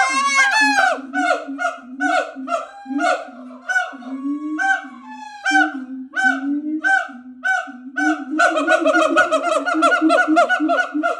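Siamangs calling: a steady series of short, honking barks over low booming notes, which speed up into a fast run of about seven calls a second some eight seconds in.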